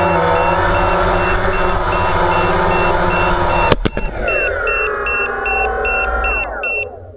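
DJI Phantom quadcopter's motors and propellers running, a knock as it touches down just before four seconds in, then the motors winding down in falling pitch and stopping. Throughout, a plug-in LiPo low-voltage buzzer beeps in short high beeps, two to three a second: the battery has dropped to the alarm's 3.7-volt set point.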